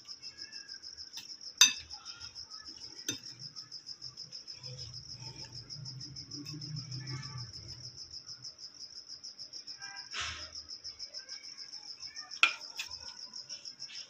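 A cricket chirping in a steady, rapid, high-pitched trill. A few sharp clinks of a metal spoon against a ceramic bowl stand out, the loudest about one and a half seconds in and again near the end.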